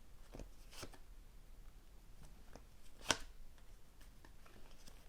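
Tarot cards being handled and laid out on a table: a few faint, scattered taps and flicks of card stock, the sharpest about three seconds in.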